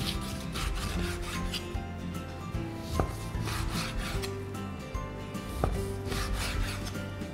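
Chef's knife slicing raw beef on a bamboo cutting board: repeated rasping strokes of the blade through the meat and against the wood, with a sharper knock of the blade on the board about three seconds in and again near the end. Background music with held notes plays underneath.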